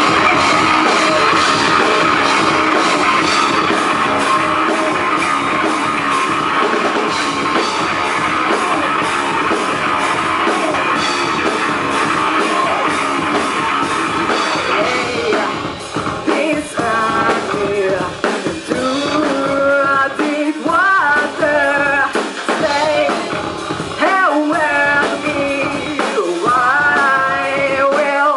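Rock band playing live, with drums and instruments filling the first half; a singer's voice comes in about halfway through.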